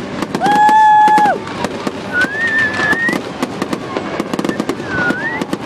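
Fireworks crackling with a dense run of sharp pops. About half a second in comes a loud held whistle lasting about a second, followed by shorter wavering whistles.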